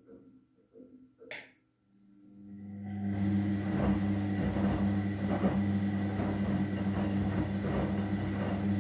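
Front-loading washing machine in a very sudsy main wash: after a click, the drum motor starts up with a hum that builds over about a second, and the tumbling tea towels slosh through the soapy water.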